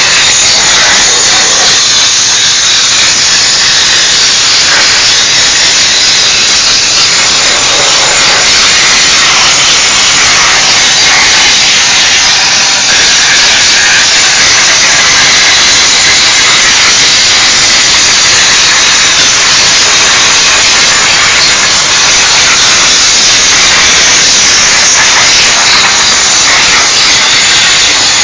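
Diesel steam cleaner spraying steam: a loud, steady hiss.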